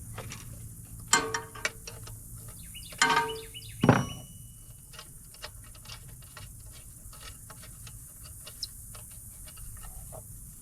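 Hand tools on metal: a few ringing metallic clinks in the first four seconds, then a run of light, regular ticks as a 13 mm wrench works the small breather bolt loose on a Yanmar 1500 tractor engine.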